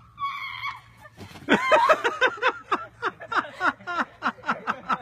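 A person laughing hard in quick, rhythmic bursts, each falling in pitch, starting about a second and a half in, after a short high-pitched cry near the start.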